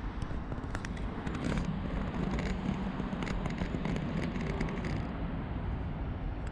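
Steady outdoor city background: a low rumble of distant traffic and wind on the microphone, with a few faint clicks in the middle.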